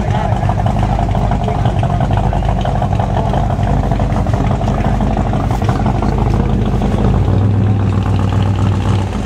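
An engine idling steadily with a low hum. The hum gets stronger about seven seconds in and fades just before the end.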